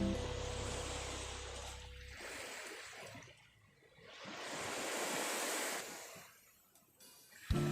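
Sea waves washing ashore, a rushing noise that swells and dies away twice.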